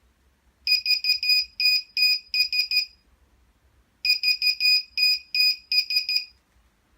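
Lost-model alarm buzzer for a drone or RC plane sounding its locator alarm. It gives two bursts of rapid, shrill electronic beeps, each about two and a half seconds long, with a pause of about a second between them.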